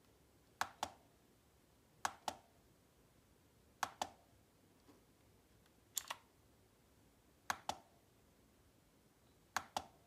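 A key on an MK11 retro typewriter-style mechanical keyboard with blue switches is pressed and released six times, every one and a half to two seconds. Each stroke gives a pair of sharp clicks.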